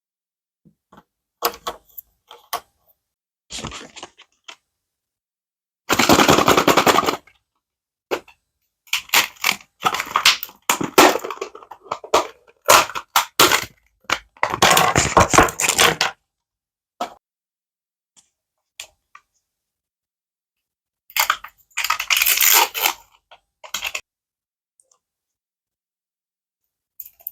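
Packaging wrappers being crinkled and torn open by hand, in rapid crackling bursts separated by silent gaps. The loudest bursts come about six seconds in and from about nine to sixteen seconds in.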